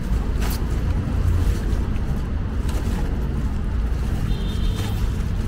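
A plastic bag rustling and crackling a few times as a tail light is slid out of it, over a steady low rumble.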